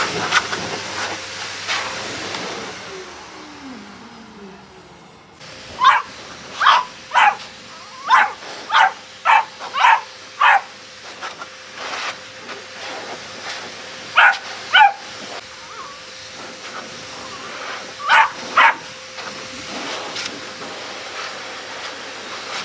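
Beagle puppy barking in short, sharp yaps at a pet fur dryer, which blows with a steady hiss. The barks come in a quick run of about ten starting some six seconds in, then in pairs with pauses between; they are the puppy's protest at the dryer it hates.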